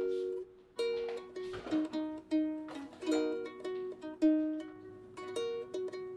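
Light background music on a plucked string instrument, single notes picked out one after another, each ringing briefly and fading.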